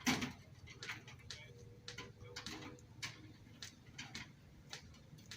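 Scattered sharp clicks and knocks, about one or two a second, from hand tools and metal parts as fenders are fitted and bolted onto a Ford Model T.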